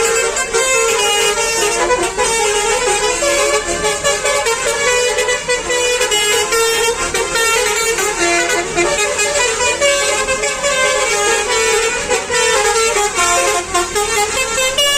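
Many bus telolet horns (multi-tone Basuri horns) playing at once, their melodic toots overlapping without a break.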